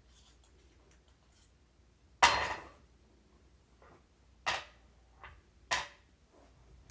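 Sharp metallic knocks and clinks, three loud ones and two softer ones, the first the loudest, each with a brief high ring: metal tools or parts striking metal while working on a wheelchair caster.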